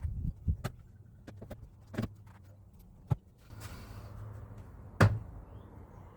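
Scattered knocks and thumps with about a second and a half of rustling or scraping in between, the loudest knock about five seconds in: a wall panel being handled and fitted inside a van.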